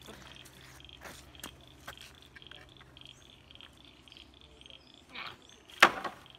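Footsteps on bare rock, then a wooden plank thrown onto a heap of scrap timber, landing with one loud knock near the end.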